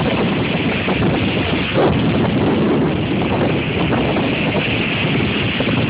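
Hurricane-force wind gusting and buffeting the phone's microphone in a loud, continuous roar of noise.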